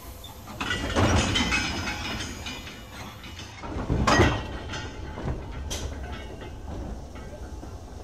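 Steam train on the rails: a steady rumble with two loud surges of noise, one starting about half a second in and a louder one about four seconds in, with faint squealing and a sharp crack.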